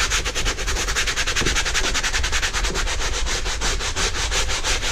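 Stiff-bristle scrub brush scrubbing a wet, foam-covered rubber floor mat in rapid, even back-and-forth strokes, working the vinyl cleaner into the dirt.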